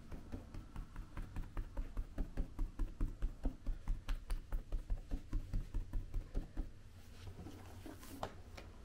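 Wooden bread docker with metal pins stamped over and over into flatbread dough on a wooden board: a steady run of soft knocks, about four or five a second, that stops about seven seconds in.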